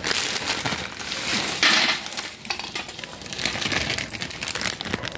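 Dry spaghetti clicking and crackling as strands are dropped and pushed into a pot of boiling water, over the bubbling of the water, with a louder crunchy burst about two seconds in.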